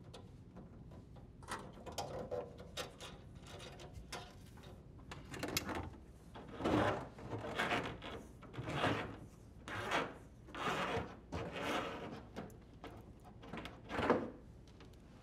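Corrugated plastic dishwasher drain hose being pushed through the hole in the cabinet wall, rasping against the edge in a series of strokes about a second apart, after a few light handling clicks.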